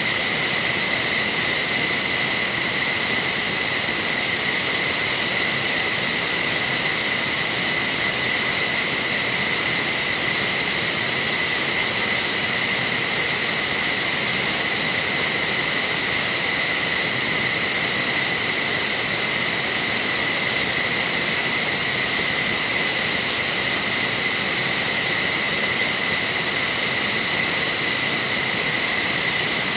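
F-15SG's turbines running steadily during start-up: a constant high-pitched whine over a rushing hiss, with no change in pitch or level.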